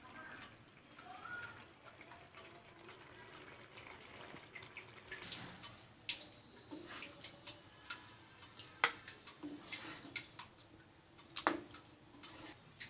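Thick okra curry being stirred and scooped out of a pan with a spatula: faint wet sloshing and dripping, with a few sharp clinks of the spatula against the pan.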